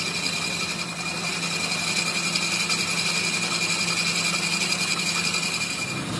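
Metal lathe running, spinning a motorcycle wheel hub on a shaft: a steady motor hum with a constant high whine.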